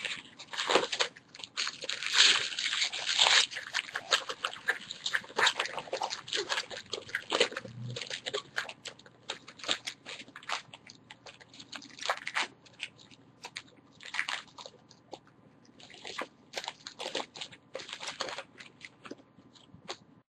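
Crinkling and tearing of plastic wrapping as a sealed box of trading-card packs is opened, loudest and densest in the first few seconds, then coming on and off in bursts.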